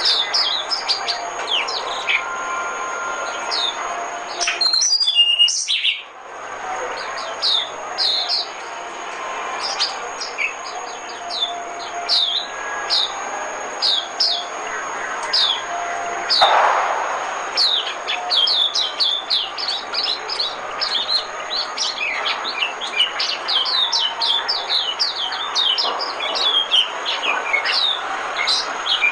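White-eye (vành khuyên) song played as a decoy call: a rapid series of short, high, downward-slurred chirps. There is a brief break about five seconds in, and the notes come more densely in the second half.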